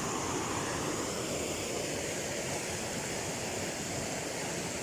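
Steady rush of water from a waterfall, an even hiss without breaks.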